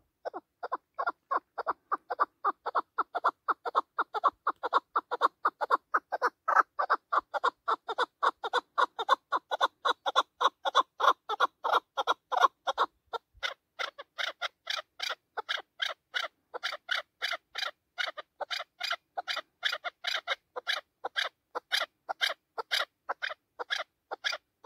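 Chukar partridge calling: a long, rapid series of clucking 'chuk' notes, about four a second. About halfway through, the notes turn higher-pitched and a little quicker.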